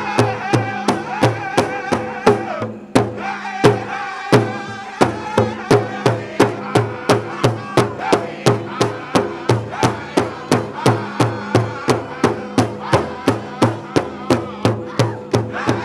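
Powwow drum group singing over a big drum struck in a steady beat, about three strokes a second. Around three seconds in the singing drops out for a moment and a few louder, spaced drum strokes sound before the steady beat and the song pick up again.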